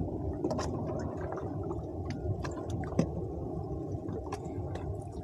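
Water sloshing and lapping against a small wooden boat's hull, with scattered light clicks and one sharper knock about three seconds in.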